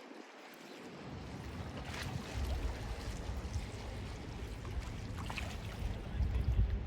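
Mediterranean sea water washing in against the shore, a steady wash of water with a low rumble underneath. The low rumble is missing for about the first second.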